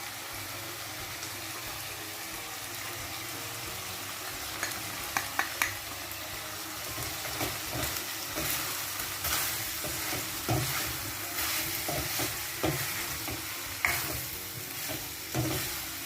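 Chicken pieces sizzling as they dry-fry in a pan, their water cooked off, while a spoon stirs them. From about four and a half seconds in, the spoon clicks and scrapes against the pan, more often in the second half.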